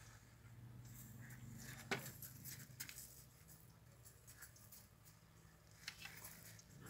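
Faint scuffling of dogs' paws on gravel as a galgo and a puppy play, with a few sharp clicks, the sharpest about two seconds in.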